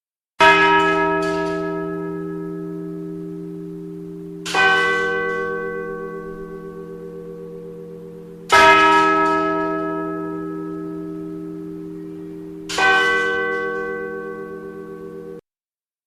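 A single large church bell tolling four times, about four seconds apart, each strike ringing on and slowly fading. The ringing cuts off abruptly shortly before the end.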